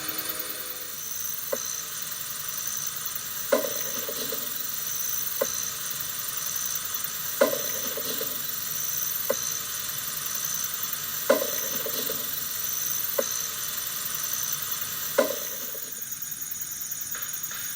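Sharp knocks about every two seconds, every other one louder and followed by a short hollow low tone, over a steady high night-time hiss.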